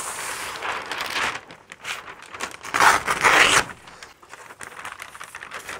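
Pink butcher paper being pulled off a roll dispenser with a rustling slide, then ripped off the roll with a loud tear about three seconds in, followed by lighter paper rustling as the sheet is spread flat.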